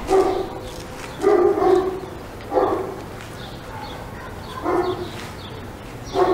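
An animal calling repeatedly: about five short pitched calls, one to two seconds apart.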